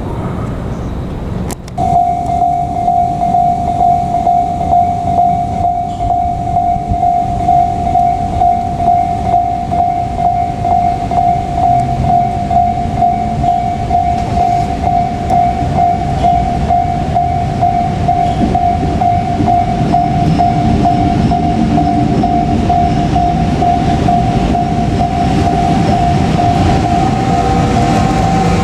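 A train running with a low, pulsing rumble. A single steady high tone starts suddenly about two seconds in and holds unbroken to the end.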